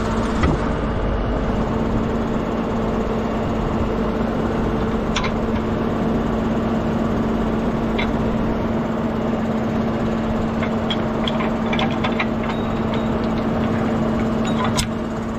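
Fendt tractor's diesel engine idling steadily, with a few sharp clicks and knocks scattered through.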